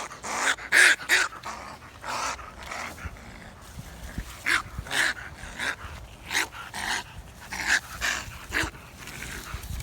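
A baby raccoon giving short hissing growls, about a dozen of them, often in quick pairs: a defensive call from a kit cornered on a pole.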